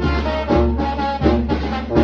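Brass band (banda) playing a lively tune: sustained horn notes over low bass notes that repeat steadily on the beat.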